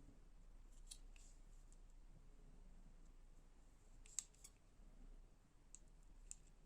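Near silence broken by a few faint, sharp clicks of small metal knife parts and tools being handled. The sharpest click comes about four seconds in.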